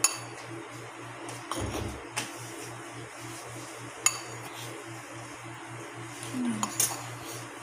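Metal spoon stirring dry flour and cornstarch on a plate, clinking sharply against the plate several times, over a low steady hum.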